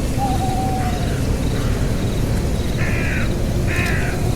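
Two short, harsh calls, each about half a second long, about three and four seconds in, with an animal or bird as the likely caller. They sound over a steady low noise, with a faint thin high whine running throughout.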